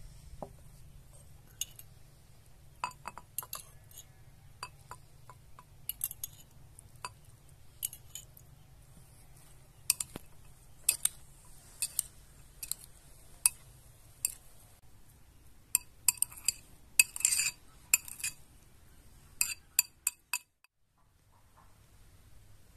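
Cutlery clinking against plates and dishes in scattered sharp clinks, with a busier run of clinks about sixteen to eighteen seconds in.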